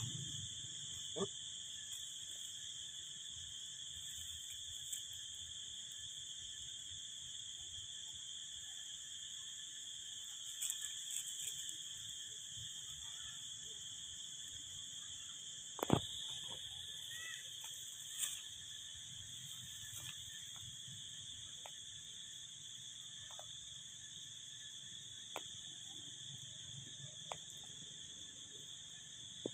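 Steady high-pitched insect chorus in two pitches, with scattered short snaps and rustles, the sharpest one a little past halfway.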